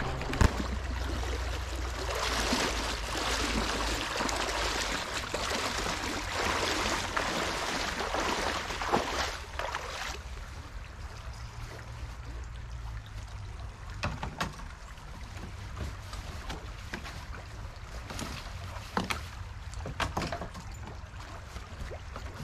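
River water running over a shallow gravel riffle, a steady rush. About ten seconds in it drops to a softer flow, with a few scattered knocks and rustles as gear is handled in a kayak.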